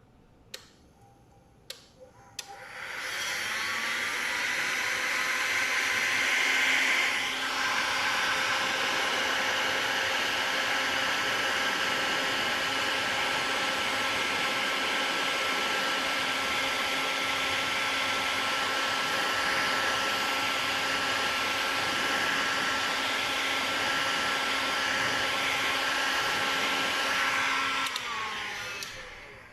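Hot air gun blowing steadily, a fan whirr with rushing air and a steady whine, heating heat-shrink tubing over a soldered wire joint. A few faint clicks come first; it spins up about two and a half seconds in and winds down near the end.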